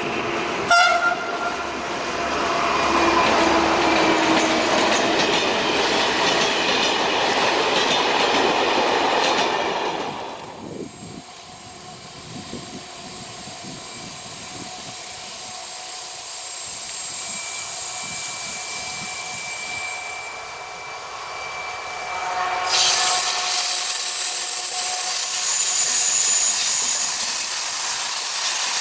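Two SNCF BB 67400 diesel locomotives with Pielstick engines, working in multiple, hauling Corail coaches past: loud engine and wheel noise, with a short horn blast about a second in. After a sudden drop to a quieter, distant running, the train comes close again near the end and the noise jumps up sharply.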